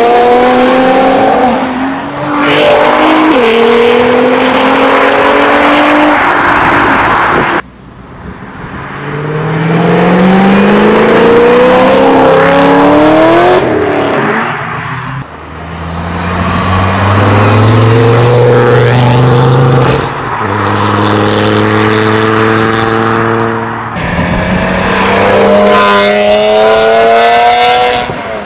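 A run of performance cars accelerating hard away one after another, each engine rising in pitch and dropping back at gear changes, with abrupt cuts between cars. A Nissan GT-R R35's twin-turbo V6 is at the start, a Vauxhall VXR8's V8 about halfway, and an E46 BMW M3's straight-six revving high near the end.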